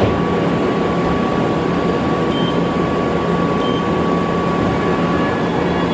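Hyundai Kia VX-400 vertical machining center running as its table traverses. It makes a steady, even machine noise with a low hum and a constant thin high whine.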